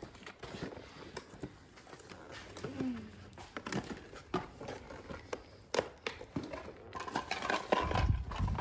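Scattered taps, clicks and rustles of a cardboard toy box with a plastic window being handled and gripped. The handling gets busier and louder in the last second or so, with a low thump.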